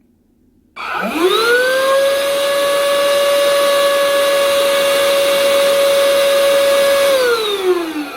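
Tod Zero cordless handheld car vacuum cleaner switched on: its motor whines up to a steady high pitch and runs for about six seconds. Near the end it is switched off and winds down, the pitch falling.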